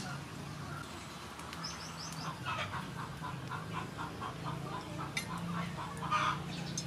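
Chickens clucking: a quick run of repeated short clucks about halfway through and a louder call near the end, with a few short high chirps before them. A steady low hum lies underneath.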